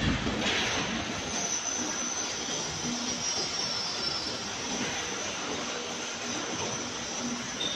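Steady mechanical noise with a thin, high whine running through it, and a short thump right at the start.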